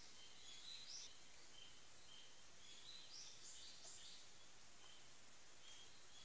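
Near silence with faint birdsong: scattered short, high chirping notes, thickest about three to four seconds in.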